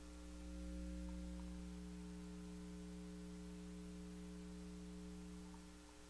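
Steady electrical mains hum, a low hum with a few higher tones above it, picked up inductively by a telephone pickup coil clipped to a sound-powered telephone's receiver. It swells about a second in and dips near the end.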